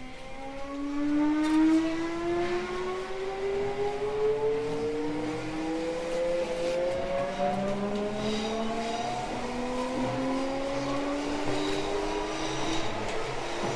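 Mitsubishi GTO-thyristor VVVF inverter and traction motors of an unrenewed Odakyu 1000 series train whining as the train accelerates from a stop: a stack of tones rising steadily in pitch. About halfway through, a new, lower set of rising tones takes over as the inverter changes its switching pattern.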